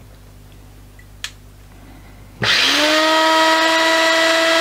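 Parkside PBSG 95 C3 drill bit sharpener, a 95 W electric grinder, switched on about two and a half seconds in: its motor spins up in a fraction of a second and settles into a steady whine as the grinding stone runs free without load. A faint click comes about a second in.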